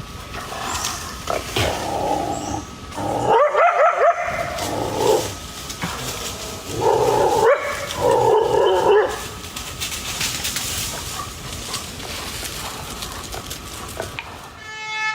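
Coyotes barking and yipping during a fight with a puma, in harsh bursts of calls: loudest a few seconds in and again around the middle, then trailing off.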